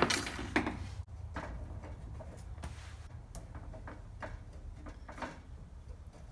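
Scattered light clicks and taps of plumbing parts and tools being handled, with a louder clatter right at the start, over a steady low hum.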